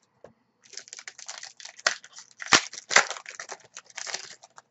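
Foil wrapper of a trading card pack crinkling and crackling as it is torn open and handled, with sharp snaps around the middle.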